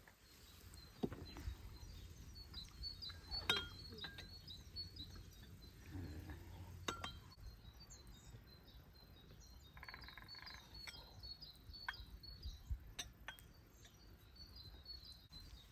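Small birds chirping quickly and continuously in the background, with a few scattered sharp clinks and knocks.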